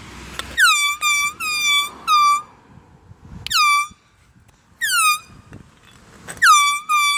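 Small handheld canned-air horn blown in a run of short honks: four quick toots close together, two single toots, then a pair near the end. Each toot starts with a quick downward swoop in pitch and then holds a steady shrill tone.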